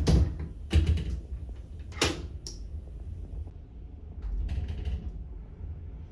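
Metal lever handle and latch of a shower-room door clicking and clacking as the door is worked open. There is a sharp click at the start, another just under a second in and one at about two seconds, then a few fainter knocks over a steady low hum.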